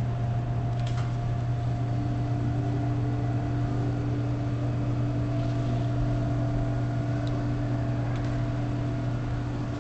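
Refrigerated drink vending machine humming steadily: a deep, even drone with a fainter higher tone that joins about a second and a half in.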